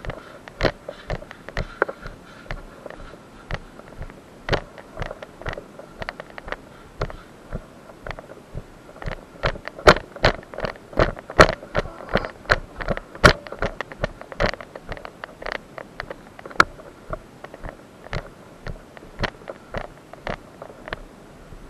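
Footsteps of a person jogging and walking over wet leaf litter and dirt paths, a sharp step about every half second, louder and quicker for a few seconds around the middle.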